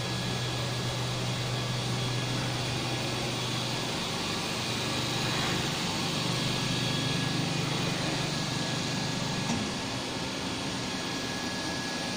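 Steady mechanical hum and fan noise from a powered-up CNC horizontal machining centre and its auxiliary units. The low hum steps a little higher about four seconds in, and there is a short click near the end.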